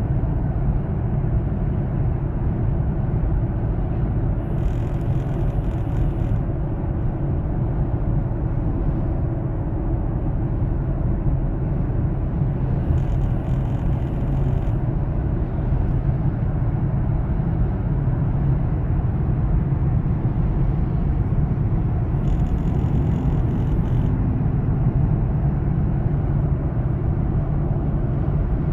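Steady low rumble of a vehicle under way, with three short bouts of high-pitched chirping and clicking, each about two seconds long, coming about every nine seconds.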